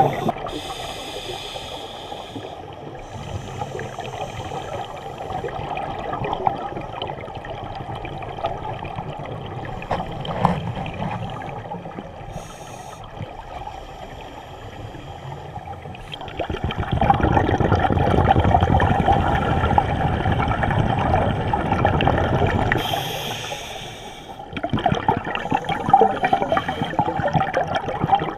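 Scuba regulator breathing heard underwater: exhaled air bubbling and gurgling out of the divers' regulator exhausts in surges, with a longer, louder stretch of bubbling past the middle and another surge near the end.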